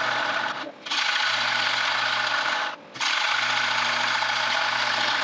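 Bowl gouge taking light cuts on a spinning wooden bowl on a wood lathe, trimming off the tenon: a steady scraping of wood being cut, broken twice by short pauses as the tool comes off the wood, over a low hum.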